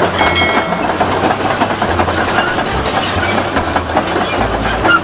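Continuous rattling clatter of a plastic toy vehicle being run and moved, with a low uneven pulse underneath.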